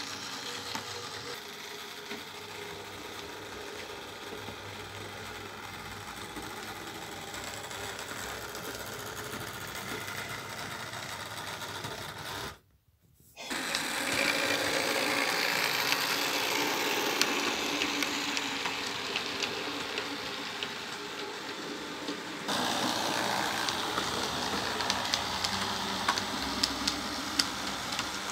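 Small electric motor of a model railway railcar whirring as it runs, with fine clicking of its wheels on the track. The sound cuts out for about a second a little before halfway and comes back louder, with a further jump in level about three-quarters of the way in.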